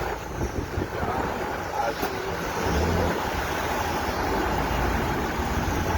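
Storm wind rushing over the microphone: a steady, rough noise with a low rumble underneath.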